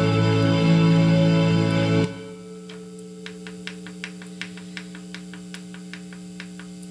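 Country backing track with pedal steel guitar that cuts off abruptly about two seconds in. A steady low note rings on after it, with faint regular ticks about three times a second.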